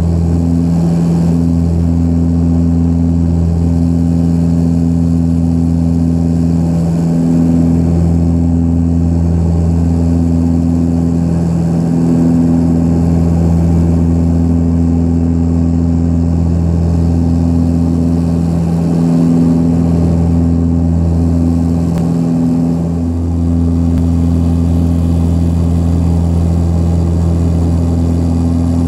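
Cabin drone of the Antonov An-24RV's Ivchenko AI-24 turboprop engines and propellers at climb power just after takeoff, heard from inside the cabin. It is a loud, steady low hum with a slow throb that swells and fades every second or two.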